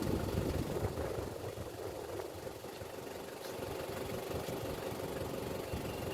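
Steady low mechanical running sound: an engine-like hum with a flickering rumble underneath.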